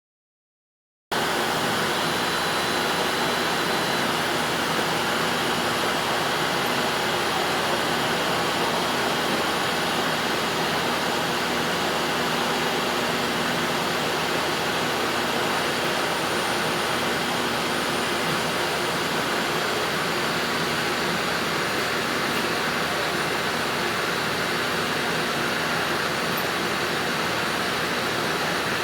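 Steady, loud mechanical din of running machinery, an even rushing noise with a faint hum in it, starting abruptly about a second in and holding unchanged.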